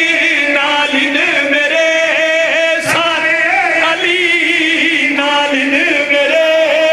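A group of men chanting a devotional Punjabi refrain in unison behind a lead male voice, held notes wavering throughout. There is a single sharp click about three seconds in.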